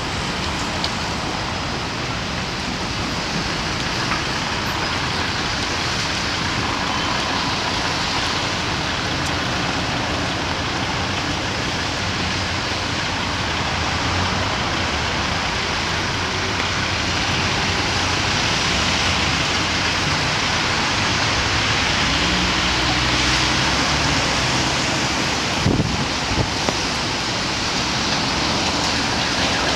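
City traffic in the rain: cars driving past on a wet road, tyres hissing and engines running, over steady rain. A few sharp clicks come near the end.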